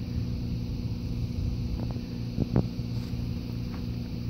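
A steady low hum with a faint wash of wind, broken once about two and a half seconds in by a brief higher-pitched sound.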